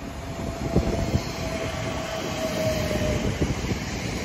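Elizabeth Line Class 345 electric multiple unit passing through the station without stopping, its wheels knocking over the rail joints as it comes alongside. A steady high whine sounds through the middle of the pass, and the rumble grows louder as it nears.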